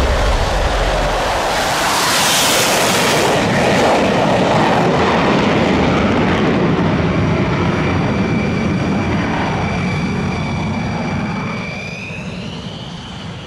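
Jet aircraft engine noise on a carrier flight deck. A loud rushing blast comes about two seconds in, then steady jet noise with a high whine that rises in pitch near the end as the sound fades.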